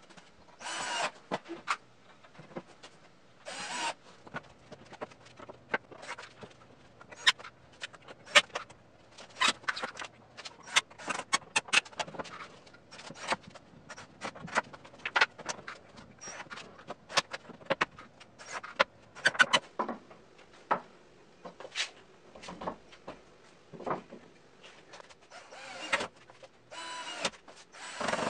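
Cordless drill driving screws into wooden shelf boards in many short bursts, mixed with sharp knocks and clicks of boards being handled.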